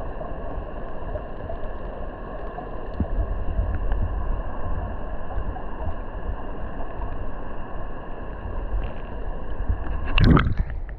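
Mountain river current heard underwater: a steady, dull rushing of flowing water over a stony bed, with scattered faint ticks. About ten seconds in, a short loud whoosh of moving water.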